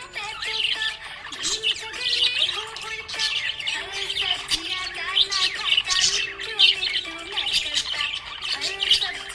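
Budgerigars chirping: a dense, unbroken run of short, high chirps and quick pitch glides.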